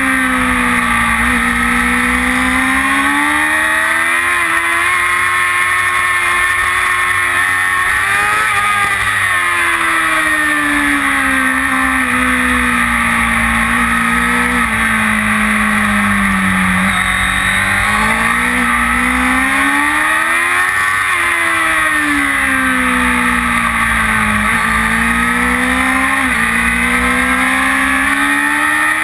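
Kawasaki ZX-6R's inline-four engine at high revs on track, heard from on board. The engine note climbs and falls through the corners, broken by several sudden jumps in pitch at gear changes, under steady wind noise.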